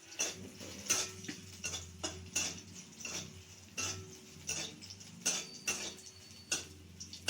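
Vegetables being stirred in a cooking pan, the utensil knocking against the pan about twice a second, over a low steady hum.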